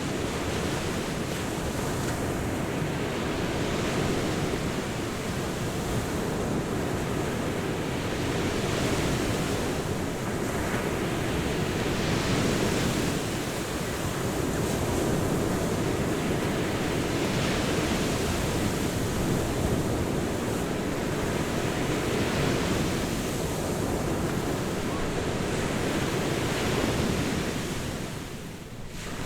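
Ocean surf breaking on a beach: a continuous wash of waves that swells and ebbs every few seconds, dipping briefly near the end.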